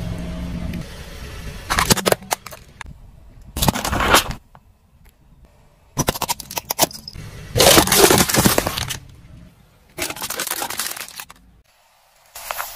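A car tyre rolling over and crushing rows of small plastic objects: a series of cracking, crunching bursts, each up to about a second long, with short quieter gaps between them.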